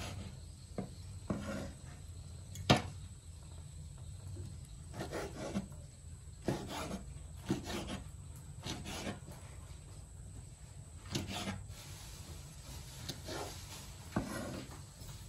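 Cleaver slicing fried beef liver on a wooden chopping board: irregular back-and-forth sawing strokes and knocks of the blade on the wood, the loudest a sharp knock about three seconds in.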